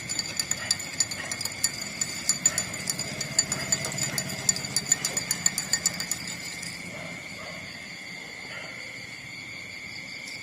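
Puppies suckling at their mother: quick irregular smacking clicks, several a second, that thin out after about seven seconds, over a steady high-pitched whine.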